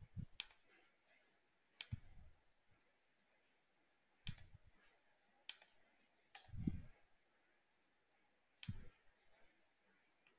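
Faint computer mouse clicks, about six spread unevenly, each followed by a short, soft low thump, as answers are selected on a form.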